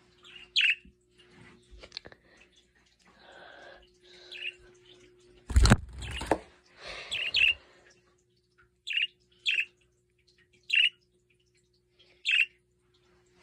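Budgerigars (pet parakeets) giving short single chirps every second or two. There is one loud thump about five and a half seconds in.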